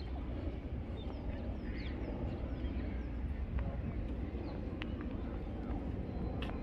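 Outdoor park ambience: a steady low rumble with a few faint bird chirps about one to four seconds in.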